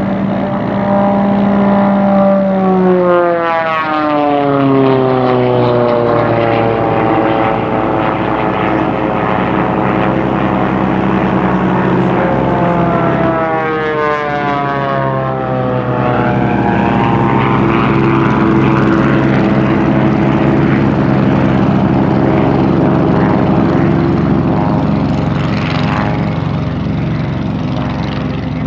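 Small single-engine propeller race plane flying past at racing speed. Its engine and propeller drone drops sharply in pitch as it passes, about three seconds in and again about fourteen seconds in, and runs steadily between the passes.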